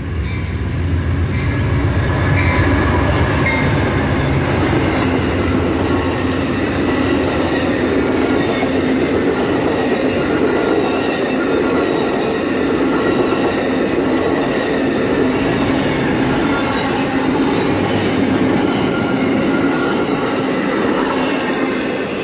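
Amtrak passenger train passing at speed close by. In the first few seconds there is the low rumble of the diesel locomotives going past, then a steady rush of the bilevel Superliner cars' wheels on the rails, with a few sharp clicks near the end. The sound cuts off suddenly at the end.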